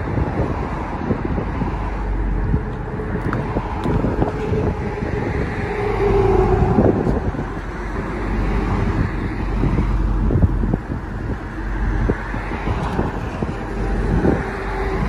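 Dodge Charger SRT Hellcat's supercharged 6.2-litre V8 idling at a standstill, with road traffic passing alongside.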